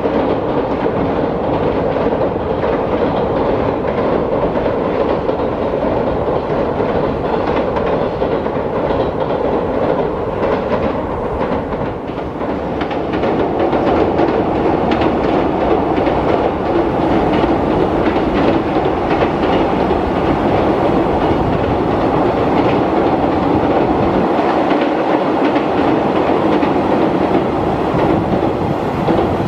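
Freight train wagons rolling past close by, their wheels clattering over the rail joints in a continuous clickety-clack.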